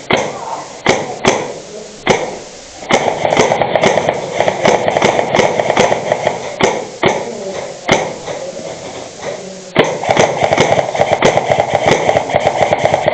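Airsoft guns firing: scattered sharp single shots, and two long runs of rapid automatic fire, one of about three and a half seconds and one starting near ten seconds in.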